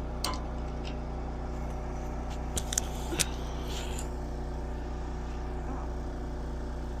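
A steady machine hum, like an engine or motor running, with a few sharp metallic clicks or taps in the first half.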